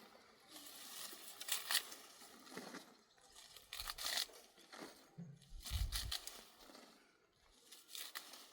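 Irregular rustling and crunching in about five separate bursts, with a dull low thump about six seconds in.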